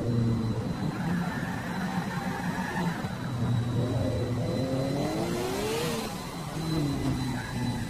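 Revving 'vroom' engine sounds for toy race cars, rising and falling in pitch several times, with the highest sweep about six seconds in.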